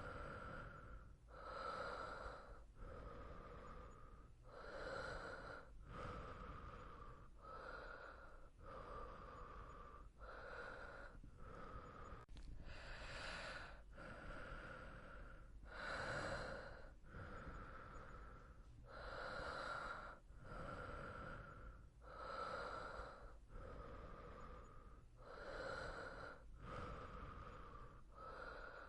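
A person breathing slowly and softly in sleep, each inhale followed by an exhale, about one full breath every three seconds.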